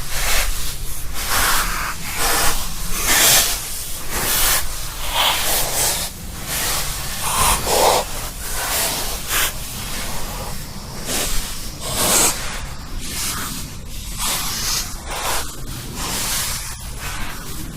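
A person breathing heavily and slowly in and out, each breath a noisy hiss, about one a second, some with a hoarse low rasp in the throat.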